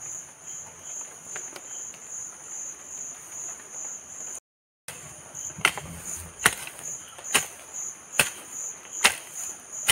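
Steady chirping of insects. About halfway in, a long-handled hoe starts chopping into soil, five sharp strokes a little under a second apart.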